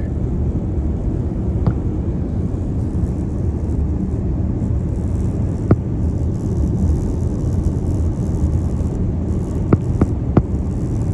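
Steady road and drive rumble inside the cabin of a BMW iX M60, with sharp clicks from the roof: one near two seconds, one near six, and three in quick succession around ten seconds. The clicks are the roof noise fault.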